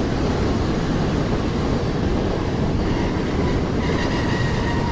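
Mumbai suburban local train running, heard from on board: a steady, loud rumble of wheels on the track. A faint high squeal comes in about three to four seconds in.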